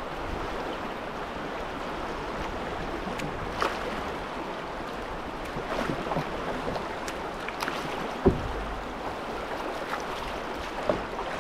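Fast river current rushing through a small set of rapids around a moving canoe, a steady wash of water, with a few short splashes and knocks from a wooden paddle. A single low thump about two-thirds of the way in is the loudest sound.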